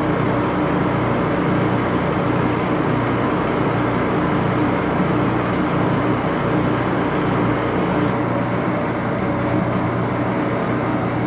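Axelson 14 x 30 heavy-duty geared-head lathe running steadily under power, its headstock gears giving a constant hum with a few steady tones and no change in speed.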